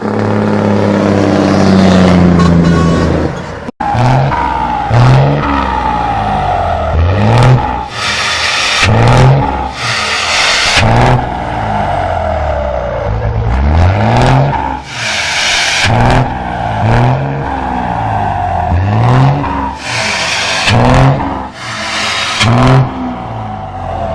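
Engine revving hard over and over, its pitch climbing and then dropping about every one to one and a half seconds, with a brief break about four seconds in.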